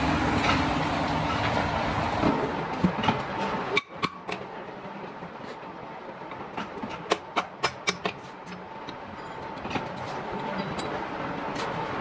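Steady machine running noise for the first four seconds, which then cuts off suddenly; after that, a run of sharp metallic taps and clinks as a hammer and wrench strike the bolted hatch of a large steel drum.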